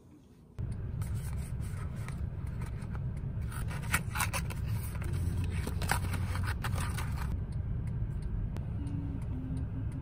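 Steady low rumble of a car cabin on the move. Over it, the paper box and sachet of lens-cleaning wipes rustle and crinkle as they are handled and opened, stopping about seven seconds in.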